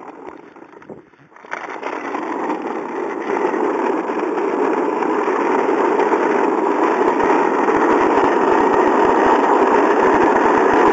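Small hard wheels rolling over rough asphalt, a coarse rushing rumble that builds as the towed scooter picks up speed. Irregular low thumps of wind buffeting the microphone come in from about halfway.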